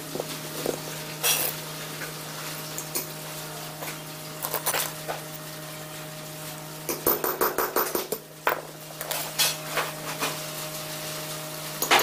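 Small metal parts clinking and rattling against a rusty iron hub as they are handled by hand. There are scattered single clicks, a quick run of rattling clicks about seven seconds in, and a sharp clink near the end, over a steady low hum.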